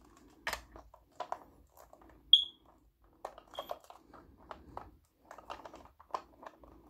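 Small hard plastic toy parts clicking and tapping as a vest is snapped onto an Imaginext Batman figure and the figure is handled into the plastic Batmobile, with a short high squeak a little over two seconds in.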